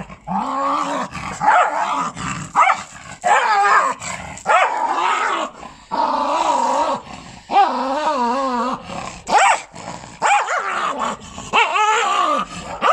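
A small Patterjack terrier (Patterdale × Jack Russell cross) growling and barking in a dozen or so wavering bursts while it is rubbed dry in a towel, a dog objecting to being dried.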